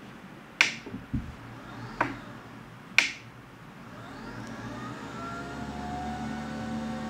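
A few sharp clicks about a second apart, then the lift motor of a SONGMICS electric standing-desk frame starting up about four seconds in and running with a steady whir as the desk moves.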